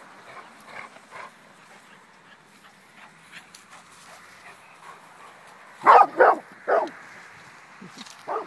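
Dog barking during play: three loud barks in quick succession about six seconds in, and another near the end, with a few faint yips earlier.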